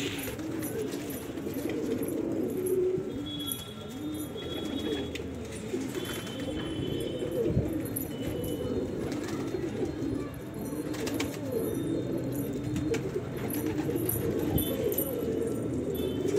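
Several domestic pigeons cooing continuously, their low, wavering coos overlapping one another.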